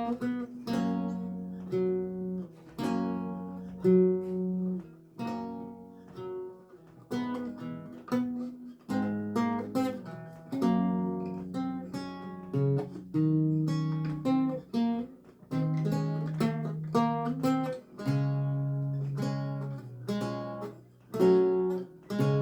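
Solo lute music: a melody of plucked notes picked over lower bass notes, each note struck sharply and left to ring out.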